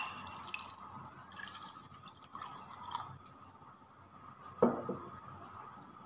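Water poured from a mug into a ceramic bowl of spice paste, splashing and trickling for about three seconds and then tailing off. A single knock comes about four and a half seconds in.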